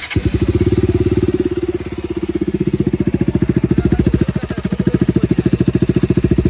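KTM Duke 125 single-cylinder four-stroke engine with a full-system Akrapovic exhaust starting up, then idling with an even, rapid pulse. The level dips briefly about two seconds in.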